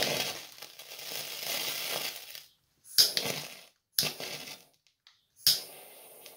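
Handheld torch lighter hissing as its flame is held on a small heap of ammonium picrate (dunnite) on aluminium foil. The hiss comes in four stretches with sudden silences between them; the last three each start with a sharp click.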